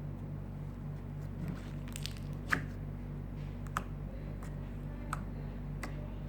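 Homemade slime being squeezed and worked by hand, making soft wet squishes and three sharp little pops about a second apart, over a steady low hum.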